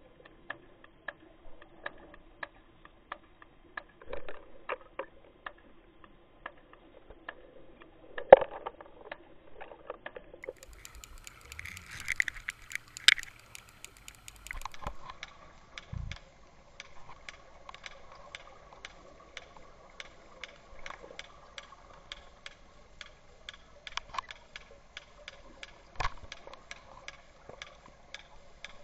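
Underwater sound picked up through a GoPro's waterproof housing on a fishing line: a steady hum that shifts to a higher pitch about halfway through, regular short clicks two to three times a second, and a few louder knocks.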